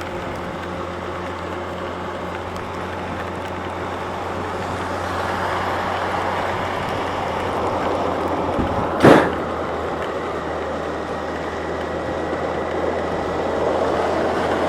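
Steady wind, rain and road noise heard from a 2007 Yamaha FJR1300A motorcycle riding through heavy rain, with the bike's inline-four engine humming steadily underneath. A brief loud burst of noise about nine seconds in.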